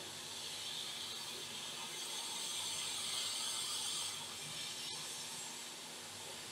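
Hot air rework station blowing a steady hiss through its nozzle while reflowing the solder of a surface-mount EC chip onto a laptop motherboard. The hiss grows louder for a couple of seconds in the middle, then settles back.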